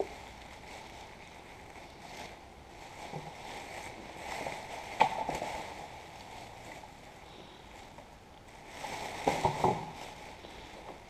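Black plastic rubbish bag rustling and crinkling as sticks and debris are pushed into it and the bag is handled, with a sharp crackle about five seconds in and a quick run of louder crackles around nine seconds in as the bag is lifted and shaken.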